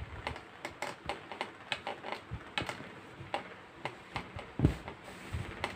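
Irregular small clicks and taps of hands working yarn through calico stretched on a stitching frame, with one duller knock about four and a half seconds in.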